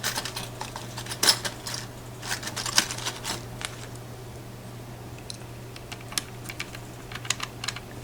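Small hard objects being handled and set down on a tabletop: irregular clicks, taps and rattles, busier in the first few seconds and sparser toward the end.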